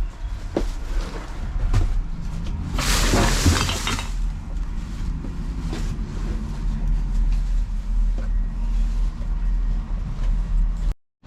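Rummaging through a dumpster: scattered knocks and clatter over a steady low hum, with a loud crash of shifting, rattling debris about three seconds in that lasts about a second. The sound cuts off abruptly near the end.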